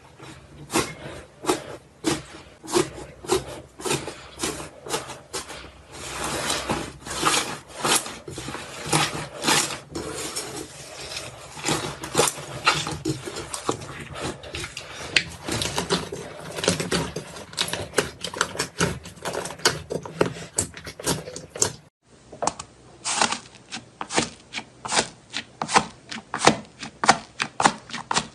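Crunchy slime being squeezed and pressed by hand: a rapid, uneven run of crackles and sharp pops, several a second. It breaks off briefly about 22 seconds in and then goes on.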